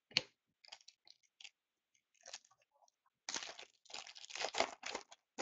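Hockey trading cards and a foil card-pack wrapper being handled: scattered light clicks and rustles, then about two seconds of crinkling and tearing starting a little over three seconds in.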